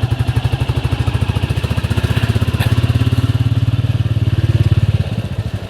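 Royal Enfield Classic 350's single-cylinder engine running under way with an even, pulsing beat, easing off somewhat about five seconds in.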